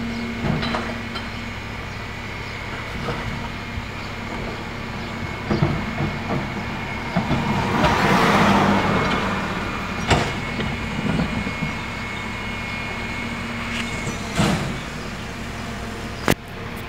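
Rear-loading garbage truck running steadily, with sharp clunks as wheeled trash carts are hand-tipped and knocked against the rear hopper. About eight seconds in, a louder rush of noise swells and fades.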